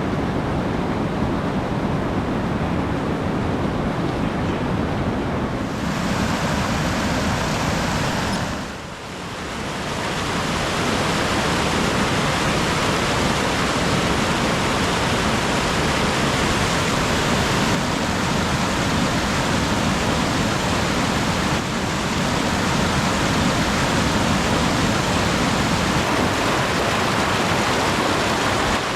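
Waterfall rushing steadily, a dense hiss of falling water, with a brief dip in level about nine seconds in.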